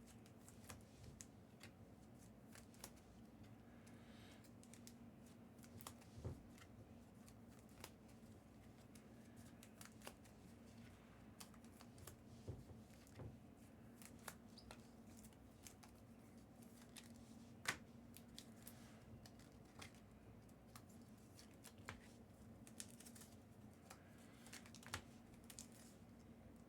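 Near silence: faint, scattered clicks and rustles of trading cards being handled, over a steady low hum.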